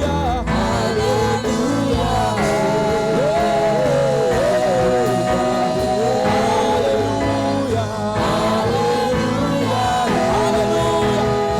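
A worship song: a singing voice carries a melody over steady instrumental backing with a sustained bass.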